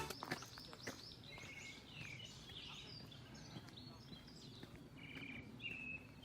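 Faint birdsong in woodland: many short chirps and trills from small birds, with a repeated higher note near the end. A couple of soft clicks come in the first second.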